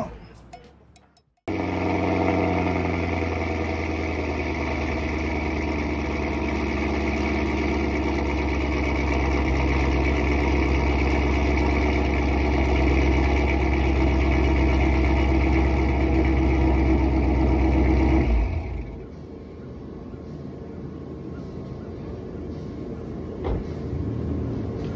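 Chevrolet Camaro ZL1's supercharged V8 idling loud and steady after a cold start, through a newly fitted straight-pipe exhaust with a valved muffler. It comes in suddenly about a second and a half in and is shut off about 18 seconds in, leaving a quieter low background.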